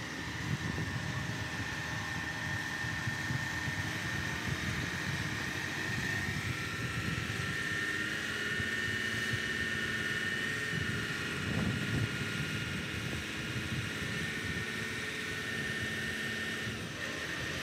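Truck-mounted mobile crane's diesel engine running steadily under load while it lowers a suspended home section, a low rumble with a steady high whine over it.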